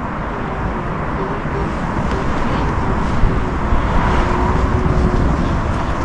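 Steady rushing outdoor noise with a deep rumble, of the kind wind on the microphone or distant traffic makes. A faint thin tone comes and goes through it, held longest about four seconds in.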